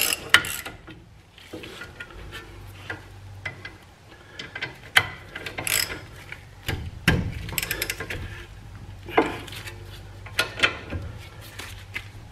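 Hand ratchet with an 18 mm socket clicking in quick runs with pauses and a few metallic knocks, as the front brake caliper bracket bolts are run down snug before torquing.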